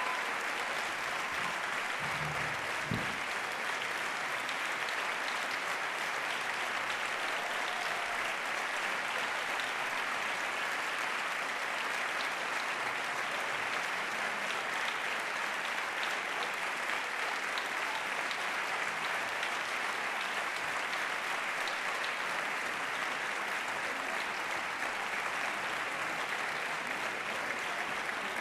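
Sustained applause from a large audience, an even, steady clatter of many hands clapping. A single low knock sounds about three seconds in.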